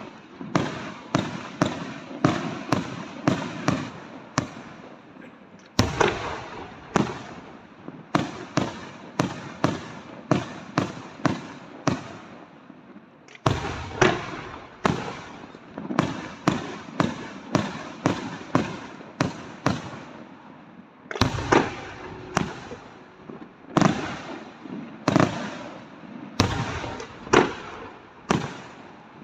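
Aerial firework shells bursting in rapid succession, about two to three bangs a second, each with a short echoing tail.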